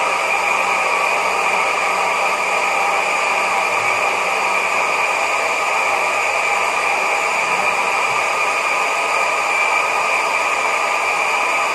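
Electric countertop blender running steadily at one speed, grinding a spice paste with cooking oil.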